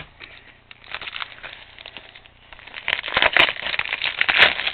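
Plastic shrink wrap on a Blu-ray case crinkling and crackling as it is cut open with scissors and handled. It is sparse at first and becomes louder and busier about three seconds in, with a few sharp clicks.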